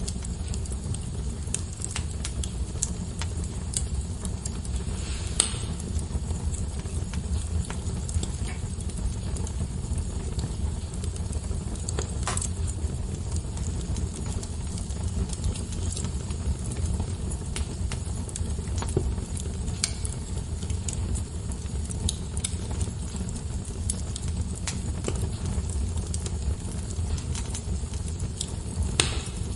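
Wood fire burning in a fireplace: a steady low rush of flames with frequent small crackles and scattered louder pops.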